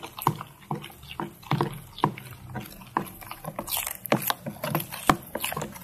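A metal spoon stirring thick flour batter in a plastic bowl: irregular wet clicks and scrapes, a few a second.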